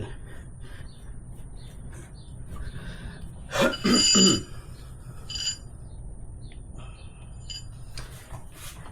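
Metal tools clinking, with a loud ringing clink a little under four seconds in and a smaller one soon after, amid light handling noise.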